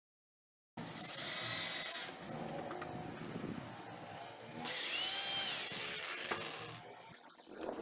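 Cordless drill run in two short bursts on wooden slats, its motor whine winding up and down, the first about a second in and the second about five seconds in, with lighter handling noise between them.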